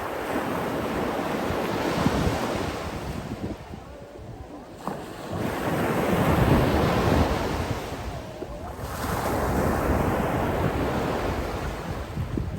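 Sea waves breaking and washing in, three surges that each swell and fall away a few seconds apart.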